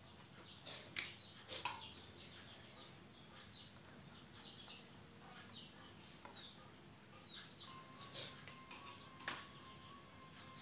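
A few sharp clicks or knocks, the loudest about a second in and another cluster near the end, over faint, scattered bird chirps. A faint steady tone comes in near the end.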